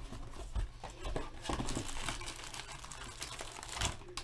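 Packaging crinkling and rustling as a sealed box of trading cards is unwrapped and opened and its foil packs are pulled out, with a low bump at the start and another near the end.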